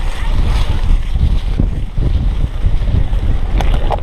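Heavy wind noise and rumble on a handlebar-mounted GoPro Hero 3 as a cyclocross bike rides over bumpy grass, with a few sharp clicks near the end.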